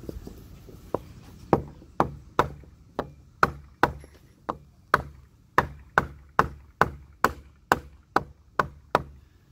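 Repeated hammer blows on wood, about two a second, knocking the deck railing's wooden top rail up a little into alignment.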